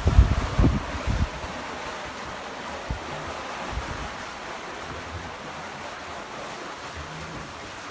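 Wind buffeting the microphone for about the first second, then a steady rush of wind and water around a sailing catamaran under way, with a few faint low thumps.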